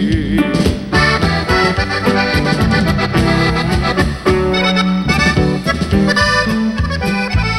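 Norteño band playing an instrumental break: a button accordion leads the melody over guitar, electric bass and drums.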